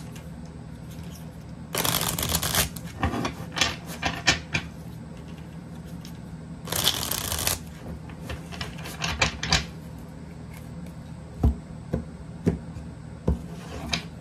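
A tarot deck being shuffled by hand: scattered taps and slides of cards, with two denser rattling runs of about a second each, one near two seconds in and one near seven seconds.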